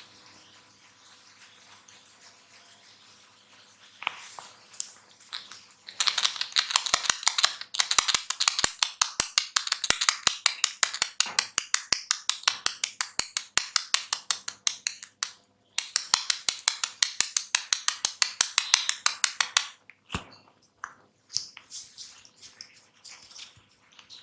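A barber's hands working rapidly on a person's head and hair during an Indian head massage, striking in a fast, even rhythm of several sharp cracks a second. The run lasts about fourteen seconds, with a brief pause midway, and only scattered light taps come before and after it.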